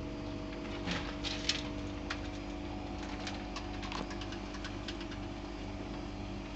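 A steady mechanical hum, with a few light clicks and taps over it, clustered about a second in.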